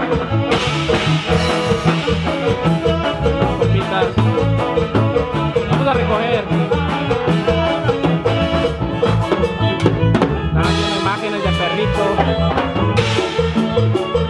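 Loud Latin dance music with a steady bass and drum beat, played by a DJ through a large PA sound system.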